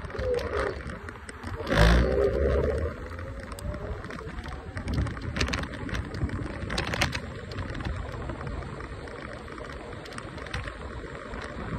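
Electric scooter riding along a city street: steady wind rumble on the microphone and tyre noise over the asphalt, with a loud thump about two seconds in and a few sharp clicks later.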